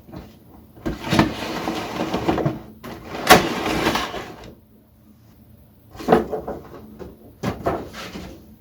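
Cardboard figure box being handled and opened: a long sliding, scraping noise, a sharp knock about three seconds in followed by more scraping, then small clicks and rustles near the end.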